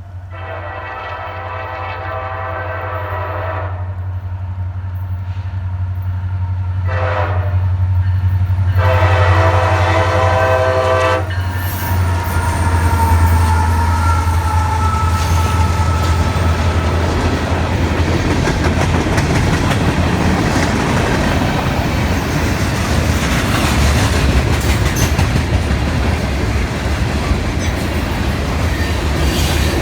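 A CSX freight train's diesel locomotive horn sounds a long blast, a short one and another long one over the steady hum of the approaching locomotive. Then the train passes, with loud steady wheel-and-rail noise.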